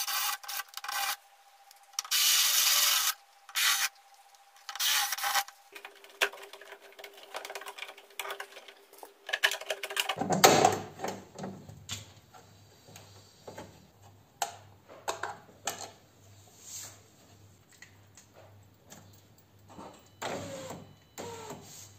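An electric drill drilling out the rivets that hold a Peugeot 407's door speaker. The motor runs with a steady whine and grinds loudly in three short spells as the bit cuts, then runs on at a lower pitch. About halfway through there is a knock, followed by scattered clicks and scraping as the speaker and door parts are handled.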